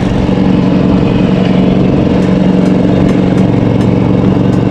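Engine of a Toro Proline 36-inch commercial walk-behind mower running at a steady speed as the mower is walked across the lawn.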